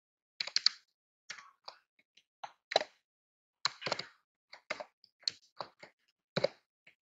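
Typing on a computer keyboard: single keystroke clicks in short, irregular runs with brief pauses between them.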